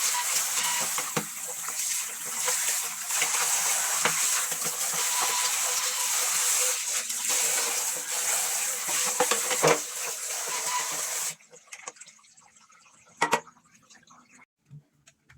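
Water running from a tap and splashing over parts being rinsed. It shuts off suddenly about eleven seconds in, followed by a few light knocks.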